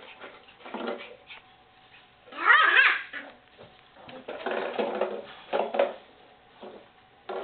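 Miniature Schnauzer puppies yipping and barking at play, in several short bursts, the loudest and highest-pitched about two and a half seconds in.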